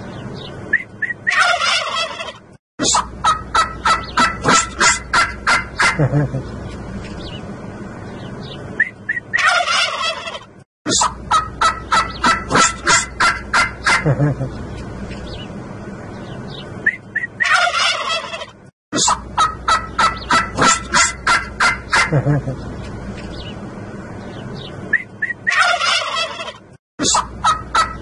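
Domestic turkey toms gobbling in chorus. Four bouts come about eight seconds apart, each a burst of overlapping gobbles followed by a rapid rattling run of about four pulses a second.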